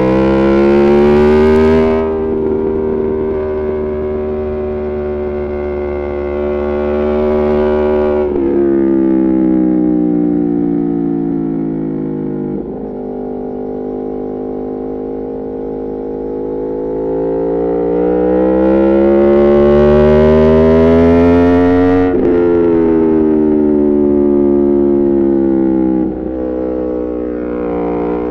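Aprilia Tuono V4 Factory V4 engine through an Arrow GP2 exhaust with the dB killer removed and the catalyst deleted, running hard: the revs climb and fall over several seconds at a time, with sudden jumps in pitch at the gear changes.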